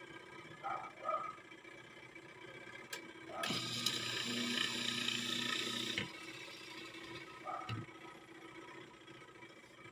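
Twin-tub washing machine's replacement wash motor running on test with a faint steady hum, with a louder rushing noise for a couple of seconds midway. A dog barks faintly a few times.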